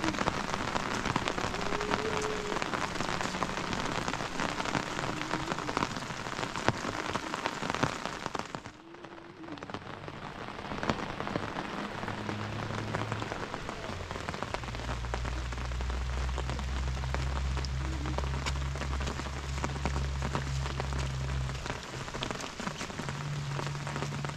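Steady rain pattering close on the microphone, dipping briefly about nine seconds in and then going on as before. A low steady hum runs underneath for several seconds in the second half.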